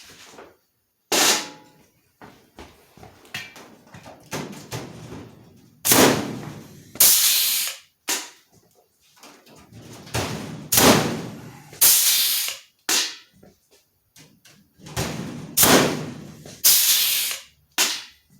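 Blind rivets being pulled into an aluminium wing spar with a rivet gun: a series of about six or seven sharp snaps a few seconds apart, some followed by a second-long rush of noise.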